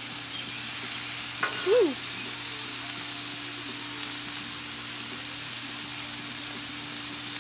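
Ground-beef smash burger patties and hot dogs sizzling steadily on a Blackstone flat-top griddle, a raw patty among them just pressed flat with a spatula. A brief rising-and-falling tone sounds about a second and a half in.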